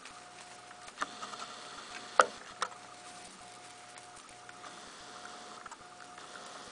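Handling noise from a handheld camera: a few sharp clicks and taps, the loudest about two seconds in, over a faint thin tone that keeps breaking off and coming back.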